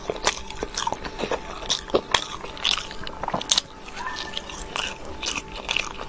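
Biting and chewing a baked pastry with a purple filling: wet mouth sounds broken by irregular sharp, crisp clicks, a few a second.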